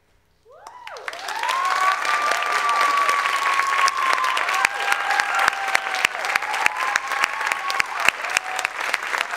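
Audience applause breaking out about half a second in and building quickly, with several people whooping and cheering in long calls over the clapping.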